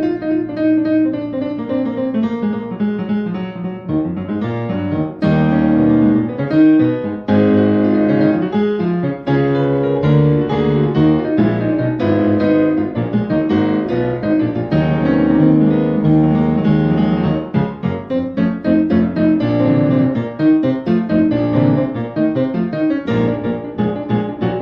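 Piano music with many notes in quick succession, louder from about five seconds in.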